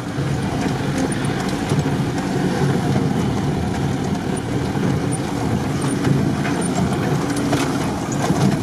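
Off-road 4x4's engine running steadily under load, heard from inside the cab as it drives fast over rough, snowy ground, with a few knocks from the body near the end.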